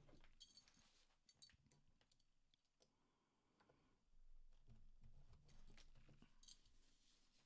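Near silence with faint scattered clicks and a soft rustle of hands handling fabric and pattern paper. The rustle is a little louder from about the middle of the stretch to near the end.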